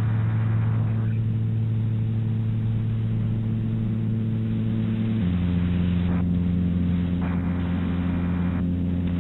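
A low, steady electronic drone of a few held tones, dropping to a lower note about five seconds in, with a band of hiss that cuts in and out abruptly.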